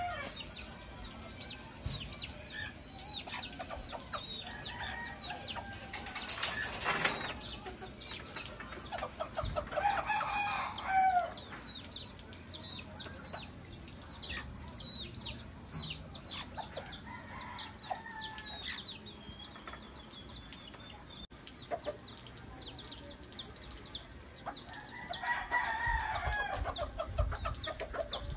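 Bantam chicks peeping over and over in quick, falling peeps while bantam hens and a rooster cluck, with louder calls about ten seconds in and again near the end. A short noisy burst comes about seven seconds in.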